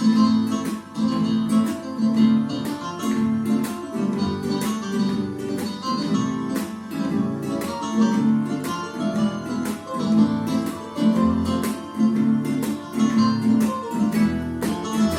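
Instrumental break of a song's backing track: strummed acoustic guitar in a steady rhythm over a moving bass line.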